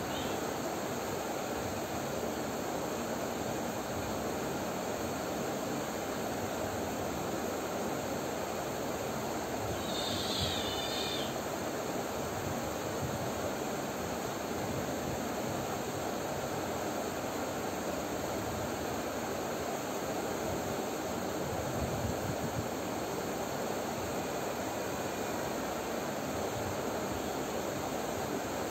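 Steady background hiss with no clear source, and one brief high-pitched chirp about ten seconds in.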